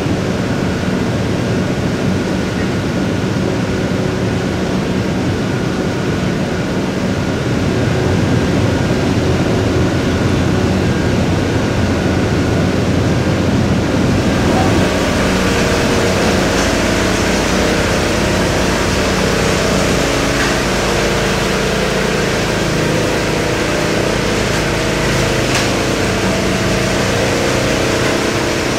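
Steady running of construction machinery engines at a concrete pour. The sound changes character about halfway through, with more hiss and a shifting hum.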